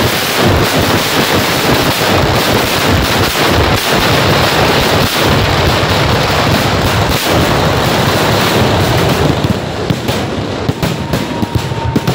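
Kerala temple fireworks (vedikettu) going off in a dense barrage, the bangs so rapid they merge into one continuous roar. After about nine and a half seconds it thins into separate sharp cracks, with a faint whistle near the end.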